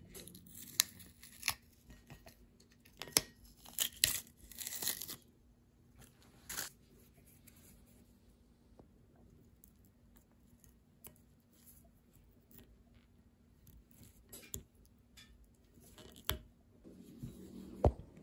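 Thin knife blade scraping and picking dried red paint out of the recesses and holes of a freshly painted Ridgid pipe wrench. It makes irregular small scratches and clicks, busiest in the first five seconds, with a sharper click near the end.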